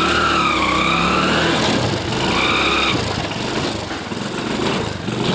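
Motorcycle engine running on the move, its pitch rising and falling.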